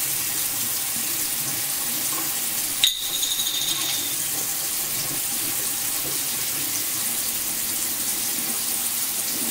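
Bathroom sink tap running steadily, with a short clink about three seconds in.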